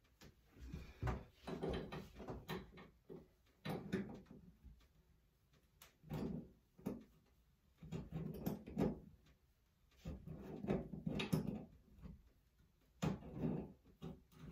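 Irregular knocks, clicks and scraping of a handheld shower head's metal fittings being handled and hand-tightened on the shower arm, to stop a small leak at the connection.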